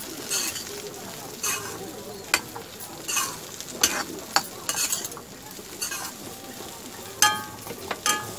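Spatula stirring and scraping okra and grated dry coconut around an aluminium kadhai, in short strokes once or twice a second, over the sizzle of the frying. Near the end the spatula knocks the pan sharply and the pan rings briefly.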